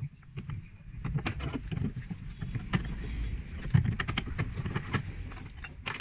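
Steel rods and parts of a homemade chain-making jig clinking, rattling and scraping as it is handled and worked. Scattered clicks at first, then a busy run of metal clicks and scrapes from about a second in.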